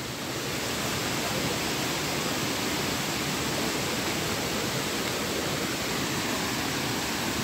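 Steady, even rush of a stream's flowing water.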